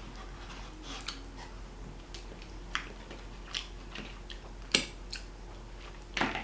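Close-up eating sounds: scattered soft chewing clicks and crackles, with two sharper clicks near the end.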